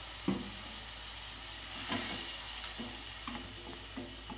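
A spatula scraping and knocking against a non-stick kadai, about six strokes, as chicken mince and potato are stirred in a little water, over a faint steady sizzle from the pan.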